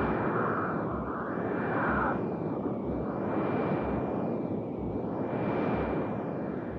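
Electronic space-like soundscape: a steady rumbling hiss with a slow whooshing sweep that repeats about once a second, low pulses, and a faint steady high whistle.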